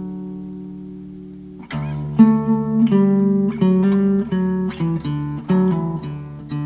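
Background music of a picked acoustic guitar. A chord rings out and fades, then picked notes start again about a second and a half in.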